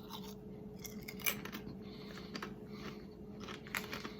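Chewing on a thick-cut, ridged Ruffles Double Crunch potato chip: faint, irregular crisp crunches, very crunchy. A low steady hum lies underneath.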